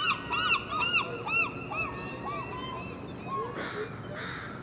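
A gull calling a long series of arched yelping notes, about two to three a second, that slow and fade, followed near the end by two harsh squawks from another bird.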